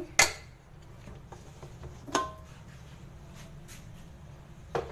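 Aluminium pressure cooker lid being opened and lifted off: a sharp metal clank just after the start, another about two seconds in that rings briefly, then a few lighter knocks.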